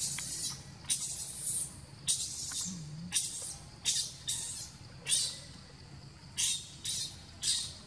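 Baby monkey screaming in distress: a string of about eleven short, shrill cries, unevenly spaced.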